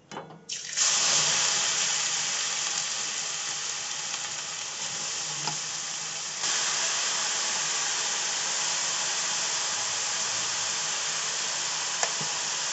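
Grated carrots dropped into hot ghee in a kadhai: a sudden loud sizzle about half a second in that settles into a steady frying hiss.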